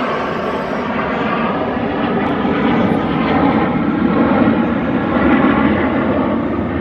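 Jet engines of a low flypast formation of large airliners and small escort jets passing overhead: a loud, steady roar with faint tones running through it, swelling slightly in the middle.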